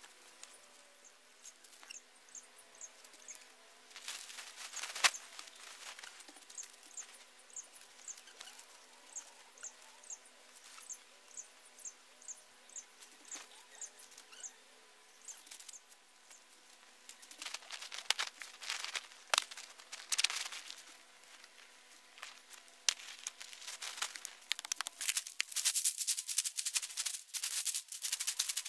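Bare feet crunching and rustling through dry leaf litter, in loud crackly spells about halfway through and thickening near the end. Underneath, short high insect chirps repeat in little groups of three or four.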